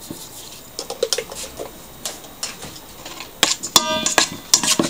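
Metal spoon clinking against a stainless-steel mixing bowl of egg batter: faint light taps at first, then several sharp clinks about three and a half seconds in, some of them ringing briefly.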